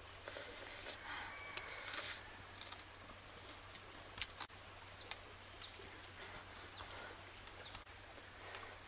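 Small cracks and crunches of a cooked stone crab's shell being bitten and picked apart by hand, with several short high falling bird chirps in the second half.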